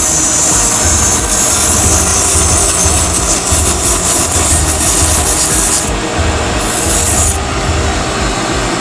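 180-grit sandpaper hissing against a chess piece spinning on a wood lathe, over the lathe's steady low running rumble. The sanding hiss breaks off about six seconds in, comes back briefly, then stops, leaving the lathe running.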